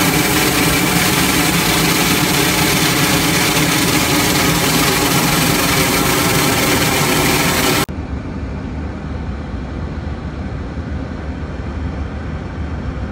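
A Boeing 747's APU exhaust at the tail running loud and steady: a dense roar with several steady whining tones. About eight seconds in it cuts off abruptly to a much quieter low, steady hum.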